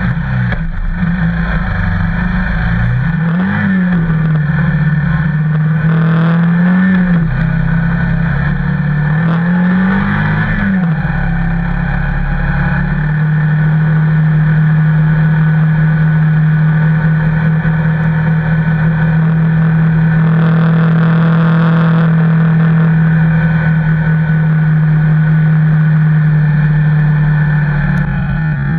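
Engine of the vehicle towing a sled over snow. It speeds up and eases off three times, its pitch rising and falling, then holds an even pitch at steady speed through the second half, over a steady rushing noise.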